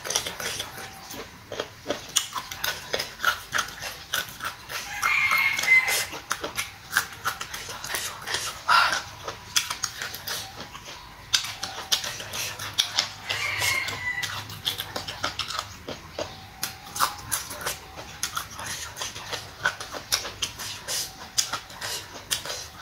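Close-miked chewing of crunchy boiled pork intestine: wet crunches, smacks and mouth clicks coming one after another.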